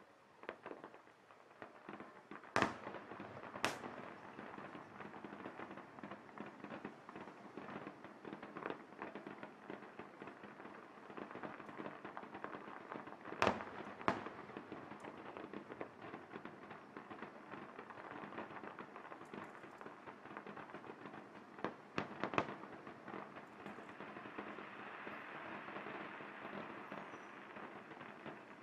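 Distant aerial fireworks display: a continuous rattle of crackling bursts, with sharp loud shell bangs in pairs a few seconds in, around the middle and about three-quarters of the way through. A denser crackling hiss swells near the end.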